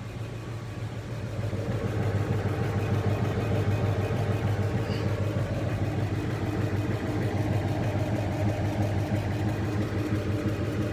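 Kamach 6090 HYPE CO2 laser cutting and engraving machine running: a steady mechanical hum that gets louder about two seconds in and then holds steady.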